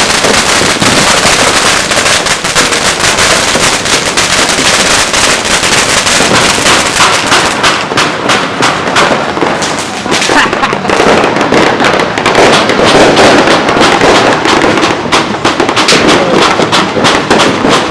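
Fireworks going off in a loud, continuous barrage of crackling and popping, the crackle turning denser and more rapid from about halfway through.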